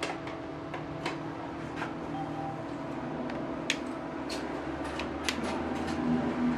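ATM keypad buttons clicking as keys are pressed one after another at an irregular pace, over a steady machine hum.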